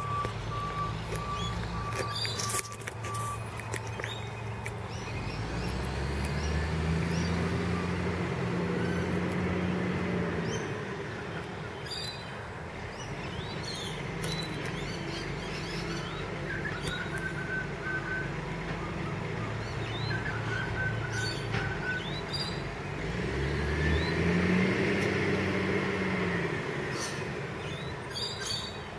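Iveco side-loader garbage truck's diesel engine running, twice revving up, holding for a few seconds and dropping back as it powers the hydraulic arm that lifts the bins. A steady warning beep sounds for the first few seconds, and birds chirp.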